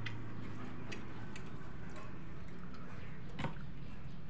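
Scattered small clicks and ticks of someone eating rice by hand, the loudest about three and a half seconds in, over a steady low hum.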